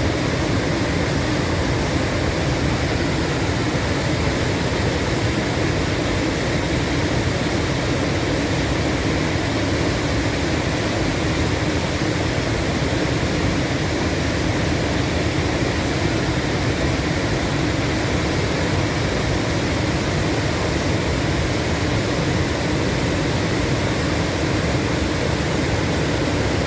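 Waterfall running high with spring meltwater, the water raging: a steady, unbroken roar of rushing water.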